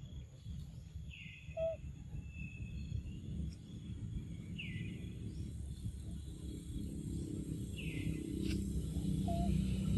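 Outdoor ambience with a steady low rumble and three short, high, downward-curving chirps spaced about three seconds apart, plus two brief fainter squeaks.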